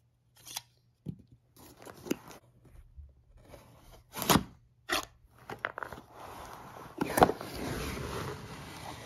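A dagger blade cutting open a cardboard box along its taped seam: scattered clicks and scrapes of metal on cardboard, then a longer rustle of cardboard and snack wrappers from about seven seconds in as the box comes open.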